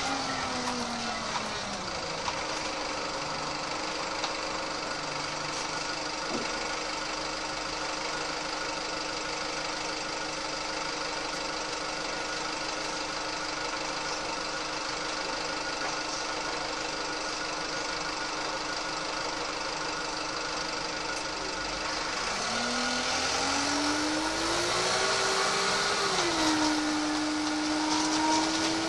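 Diesel engine of a VDL SB120 Wright Cadet single-deck bus: it winds down, runs steadily for about twenty seconds, then revs up as the bus pulls away. The pitch climbs, drops once at a gear change, and climbs again, getting louder.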